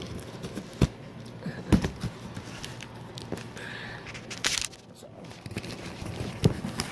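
A knife cutting into and working at cardboard shipping packaging, heard as scattered clicks, knocks and scrapes, with a short rustling, tearing burst about four and a half seconds in.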